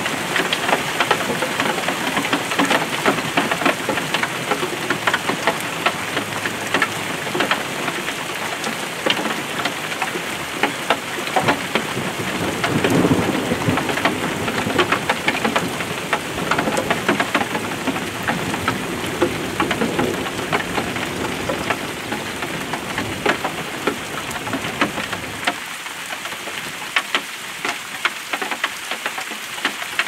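Rain pattering steadily on a surface, a dense run of fine drop hits, with two low swelling rumbles around the middle. The deepest part of the sound falls away near the end.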